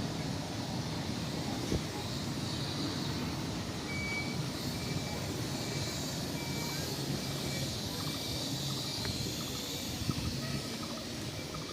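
Steady outdoor background rumble with a run of short, evenly spaced high electronic beeps, a little under two a second, starting about four seconds in and stopping after about nine seconds.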